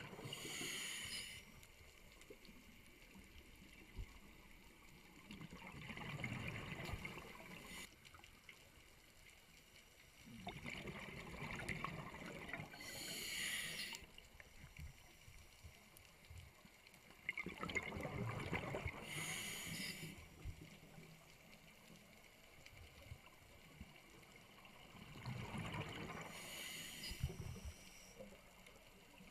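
A scuba diver breathing through a regulator underwater: a swell of bubbling and hiss comes every six to eight seconds, with quieter gaps between breaths.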